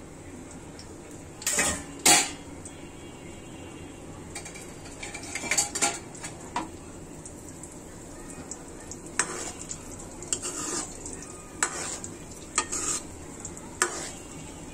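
A metal utensil clacking and scraping against a frying pan in irregular strokes, loudest about two seconds in, over a steady low sizzle of nimki frying in oil.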